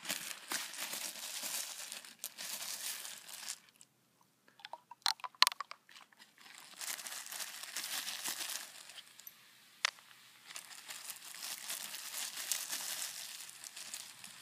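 Diet Coke fizzing and crackling as Mentos-triggered foam pours out of the bottle and down its sides, with a few sharp clicks about five seconds in.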